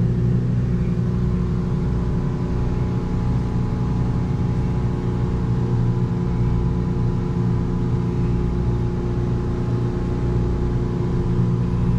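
Steady low machine hum with several held tones, unchanging throughout: the RV's running appliances and the generator carrying about half load.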